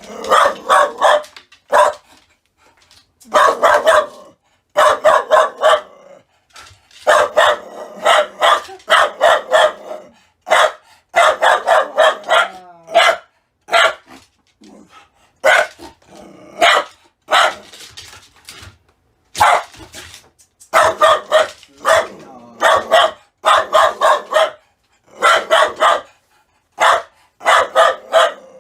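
A people-shy feral dog barking insistently: volleys of several sharp barks in quick succession, broken by short pauses, typical of a fearful, defensive dog wary of a person.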